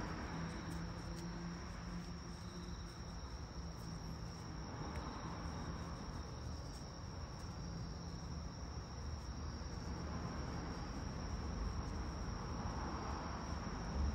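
Insects chirping in a steady high-pitched trill, over a low steady hum.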